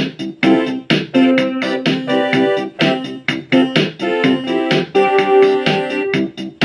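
Casio HT-3000 synthesizer keyboard playing with its Casio Chord accompaniment: rhythmic chords in an electric-piano-like tone, struck about twice a second with sharp attacks.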